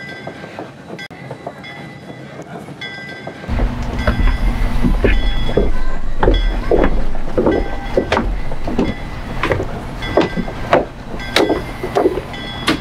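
Steam train at a station: a low rumble sets in about three and a half seconds in, with regular sharp strokes over it, a little under two a second.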